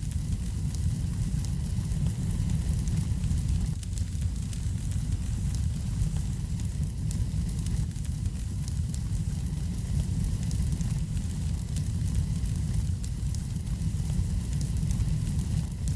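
Wood fire burning in a fireplace: a steady low rumble of flame with many small, scattered crackles and pops.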